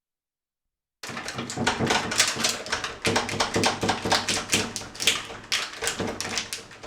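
Door latch lock and a plastic sheet clicking and rattling quickly and irregularly as the sheet is worked into the latch to force it open, starting abruptly about a second in.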